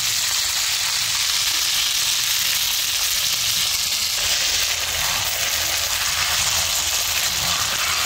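Masala-coated fish frying in hot oil: a steady, even sizzle.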